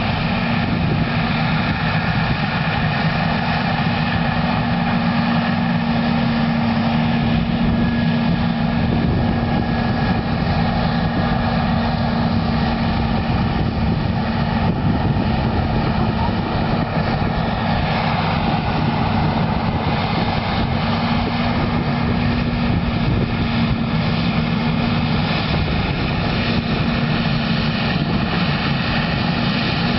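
Versatile 550 tractor's diesel engine running steadily while pulling a Cat 80 scraper, a loud even drone whose note shifts slightly a little past halfway.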